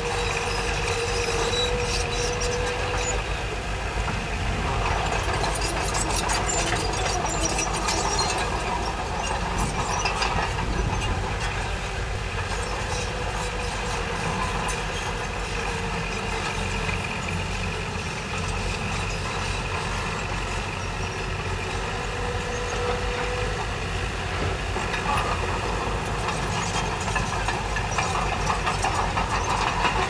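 Diesel engine of an earthmoving machine running steadily, with scattered metallic clanks and rattles in the first half.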